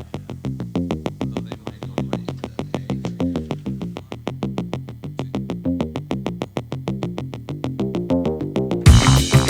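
Electronic background music: a fast, evenly pulsing synthesizer line, joined near the end by a louder, fuller section with heavy bass and drums.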